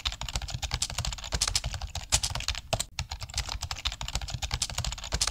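Rapid, irregular clicking and crackling, like fast typing on a keyboard.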